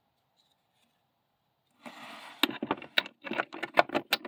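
Steel impact sockets clicking and clattering against each other and their plastic rail as a hand puts a socket back into the tool case. It is a quick, uneven run of sharp clicks that starts about halfway in.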